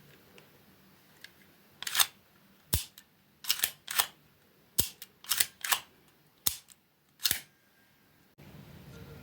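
Kiev 30-1 subminiature film camera's mechanism being worked by hand: a series of about nine sharp mechanical clicks, some in quick pairs.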